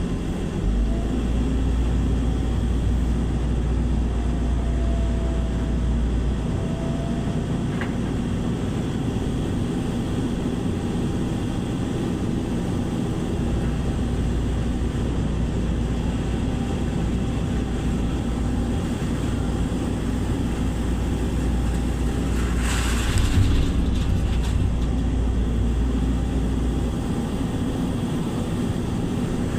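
Heavy engine running steadily with a low rumble, its deepest part dropping away and returning a few times as the load changes. About 23 seconds in there is a brief hiss.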